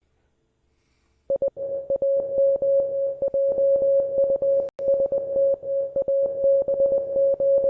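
Morse code sent as a single steady tone, keyed on and off in dots and dashes, starting about a second in.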